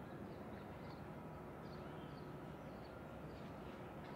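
Faint outdoor ambience: a low steady rumble with small birds chirping over it, short high chirps about twice a second.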